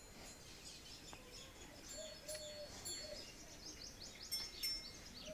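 Small birds chirping, many quick high chirps that grow busier near the end.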